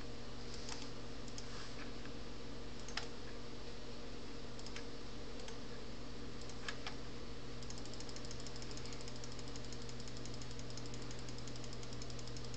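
Scattered computer mouse clicks, a few seconds apart, over a steady low hum; from about eight seconds in, a fast, even ticking starts and keeps on.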